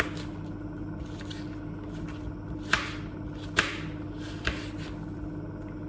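Onions sizzling in fat in a frying pan: a steady hiss with a few sharp clicks or pops, the clearest about three seconds in, over a steady low hum.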